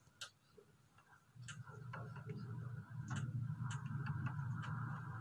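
Thunder from a lightning strike, starting as a low rolling rumble about a second in and growing louder. Scattered sharp ticks sound over it.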